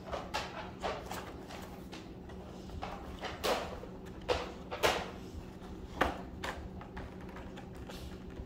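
Plastic blister pack and cardboard backing of a toy car being handled and pulled apart, crackling and rustling in irregular bursts, with several sharper snaps in the middle.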